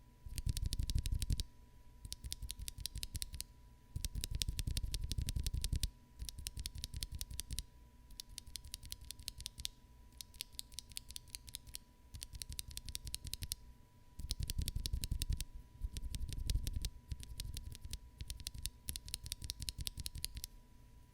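Frog linear mechanical keyboard switches pressed rapidly over and over, in runs of quick clacks a second or two long with short pauses between. The runs compare stock factory-lubed switches with hand-lubed ones.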